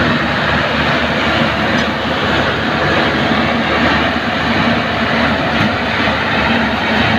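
Rice combine harvester running steadily: an even engine drone with a broad mechanical rush over it, without change in speed.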